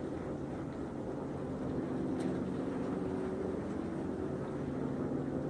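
A boat's engine running steadily out on the water: a low, even hum.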